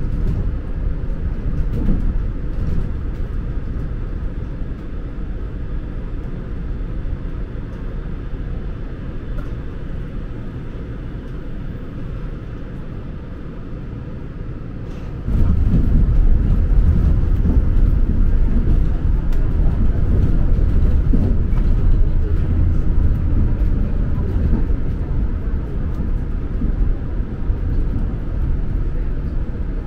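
Cabin noise of a Shonan Monorail suspended monorail car running, a steady low rumble that steps up abruptly louder about halfway through and stays loud.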